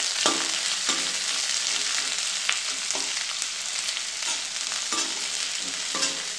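Sliced onions and chopped garlic sizzling in a little hot oil in a metal kadai. A slotted metal spatula stirs them, scraping and knocking against the pan now and then.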